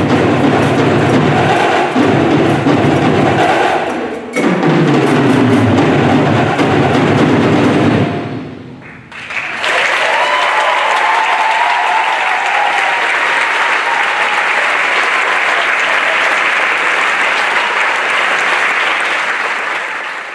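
A drum line plays the closing bars of a percussion piece over a recorded accompaniment track and stops about eight seconds in. After a short pause the audience breaks into steady applause, which fades out at the very end.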